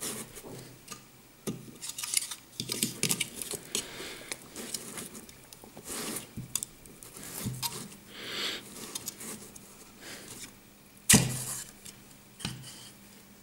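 Kinetic sand being packed into a plastic castle-tower mould by hand: scraping and rustling of sand with small plastic clicks and knocks, and one sharp, loud knock near the end.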